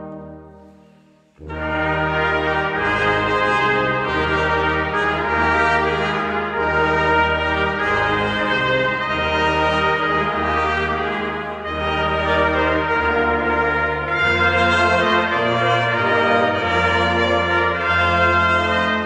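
Brass choir of trumpets, trombones and tuba playing sustained chords. A chord dies away over the first second and a half, then the whole ensemble comes in together and plays on in full harmony.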